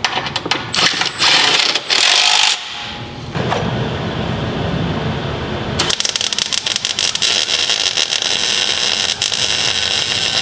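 MIG welder tack-welding a steel engine-mount bracket to the car's rear cross member: a few short crackling bursts of arc in the first couple of seconds, then a longer steady crackle beginning a little past the middle.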